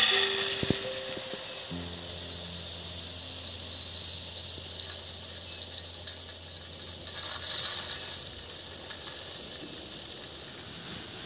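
Puffed rice poured in a steady stream into a large aluminium bowl: a continuous dry rustling hiss of the light grains falling onto the metal and onto the growing heap, starting suddenly and tapering off near the end.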